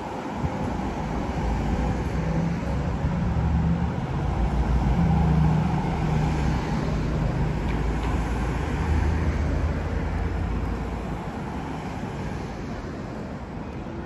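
Street traffic: a motor vehicle's low engine rumble rises to its loudest about five seconds in, then slowly fades.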